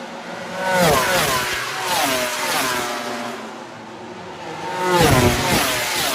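MotoGP racing motorcycles' four-stroke engines at full throttle on a straight, their pitch climbing and dropping again with each upshift. Two bikes pass close by, one about a second in and one about five seconds in, and each pitch falls away as it goes past.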